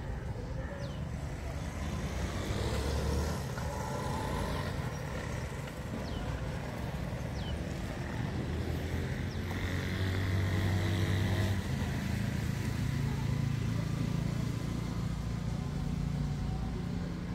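Road traffic: vehicle engines running past on a city street, loudest about ten to eleven seconds in.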